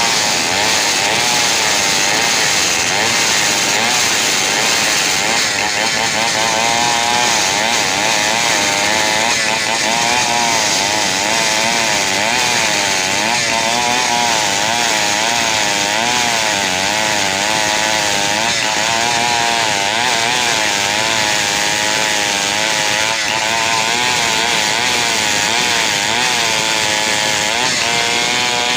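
Large two-stroke chainsaw running at full throttle, cutting through a big log, its engine note wavering up and down under load.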